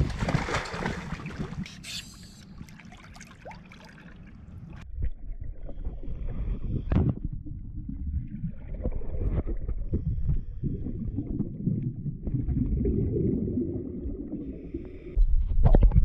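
A splash into the water, then muffled sloshing and gurgling with scattered knocks, as a swimmer works to cut a rice sack out of a sailing yacht's fouled propeller. The rumbling grows louder about a third of the way in, and a heavy low surge of water comes just before the end.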